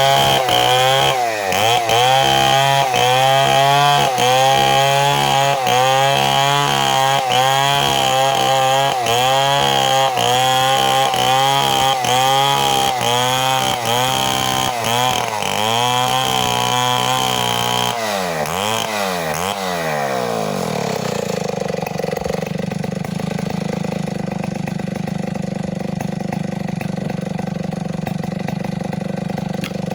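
Chainsaw running at high revs, its pitch dipping briefly about every two-thirds of a second. About eighteen seconds in the revs fall away and it settles into a steady idle.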